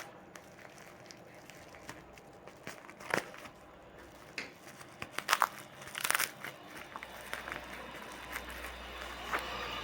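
Packaging crinkling and rustling as a wrapped item is unwrapped by hand, with a few louder crackles about three, five and six seconds in and near the end.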